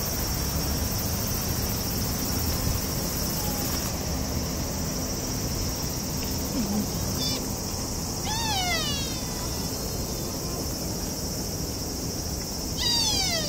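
Steady, high-pitched drone of insects. A few short calls falling in pitch come through a little past halfway and again near the end.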